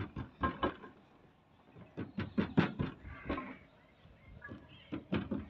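Hands slapping and pressing oiled paratha dough flat on a steel table: a run of short, soft slaps, several in quick succession about two to three seconds in and a couple more near the end.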